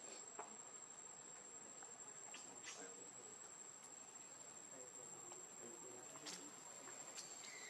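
Faint background of an insect giving a steady, high-pitched, unbroken trill, with a few faint soft clicks.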